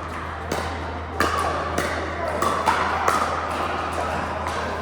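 Pickleball paddles striking a plastic ball: a string of sharp pocks at irregular intervals, the loudest near the middle, over a steady low hum.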